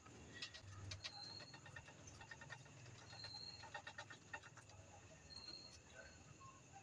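Near silence: faint clicks and rustling in the wood-shaving bedding, with three brief, faint high squeaks of newborn hamster pups in the nest.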